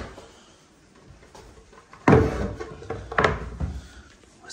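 Wooden thumps and knocks on a plywood whelping box, as the camera is set down on its edge. There is a loud thump about two seconds in and a few more knocks about a second later.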